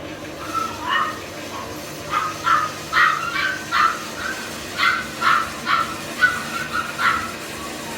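A dog barking repeatedly, about a dozen short barks, over a steady low hum.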